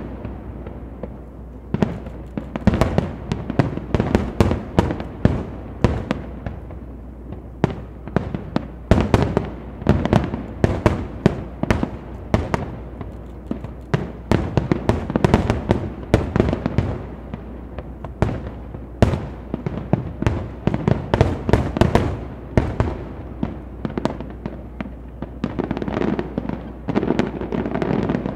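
Fireworks display: aerial shells bursting one after another in a dense run of sharp bangs, thickening into an almost continuous barrage near the end.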